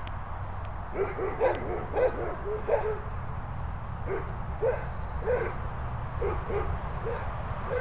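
Dog barking in short single barks: a quick run of them from about a second in, then barks spaced roughly half a second to a second apart.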